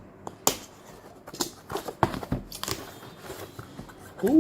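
Packaging being handled and pulled open during an unboxing, a run of crinkles, tears and clicks, ending in a short, loud sound that rises and falls in pitch.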